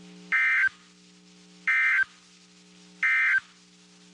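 Emergency Alert System end-of-message code on NOAA Weather Radio: three identical short bursts of warbling digital data tones, about a second and a half apart, which signal the end of the alert. A steady low electrical hum from the radio runs underneath.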